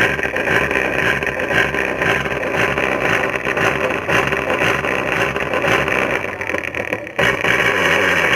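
Music played loudly through a 4-inch speaker during a sound check, dense and mid-heavy, with a brief dip about seven seconds in.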